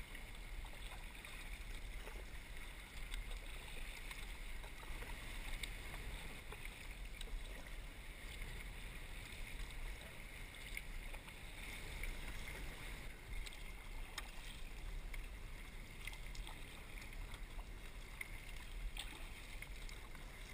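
Kayak paddling: water lapping and splashing against the hull and the paddle blade as it dips, a steady wash of water noise with small scattered splashes and ticks.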